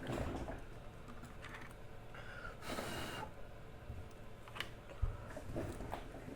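Scattered light clicks and taps, with a brief hiss about three seconds in.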